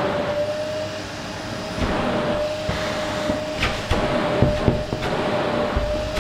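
Qilive vacuum cleaner running on a sofa: a steady rushing airflow with a constant motor whine. A few knocks and bumps come in the second half.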